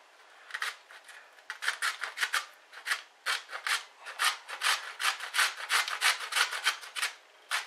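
Raw beetroot being grated on a metal box grater: a quick run of rasping strokes, about four a second, starting about half a second in.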